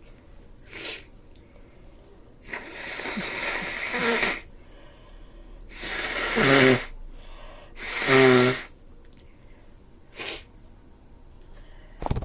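A person with a stuffy head cold sniffling and sneezing. There is a short sniff about a second in, then a long, noisy breath, then two loud sneezes close together. Another short sniff comes near the end.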